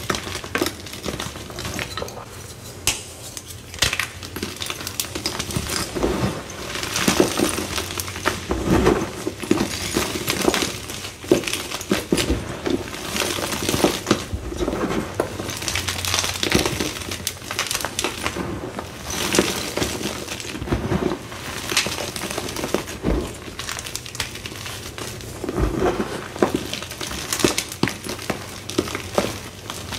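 Z Athletic gym chalk being crushed and crumbled by hand, a dense, irregular crunching and crackling as the blocks break between fingers and palms and the pieces fall back onto the pile.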